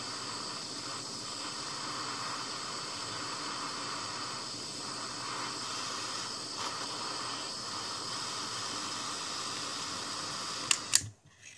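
Small handheld torch flame hissing steadily as it heats a Kanthal wire coil red-hot. Near the end come two sharp clicks and the hiss stops.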